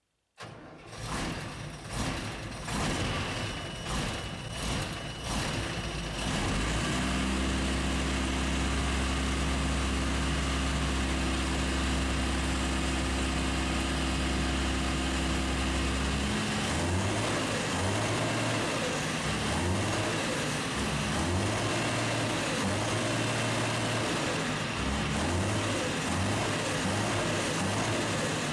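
The diesel engine of a Claas Dominator Mega 208 combine harvester turning over with a series of knocks for about six seconds, then catching and running steadily. Its note changes about halfway through.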